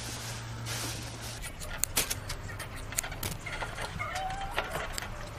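Scissors snipping through a bull's thick, curly hair, a string of short, sharp snips at an uneven pace.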